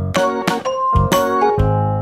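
Background music: a keyboard tune with a steady beat, notes struck about twice a second over low bass notes.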